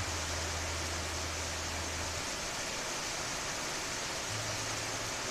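Steady rain falling: an even, unbroken hiss. A faint low hum sounds underneath for the first two seconds and again near the end.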